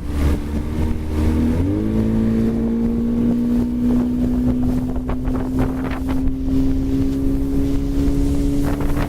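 Motorboat engine running. About a second and a half in its pitch dips, then climbs slowly and steadily as the throttle opens and the boat speeds up. Wind buffets the microphone throughout.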